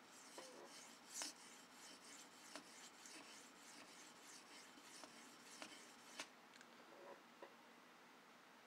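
Steel knife blade (Leatherman E33L, 154CM) being drawn in faint, spaced strokes across an oiled sharpening stone, a soft scraping sound. These are counted sharpening strokes on one side of the edge, worked to raise and flip the burr. The strokes stop about seven seconds in.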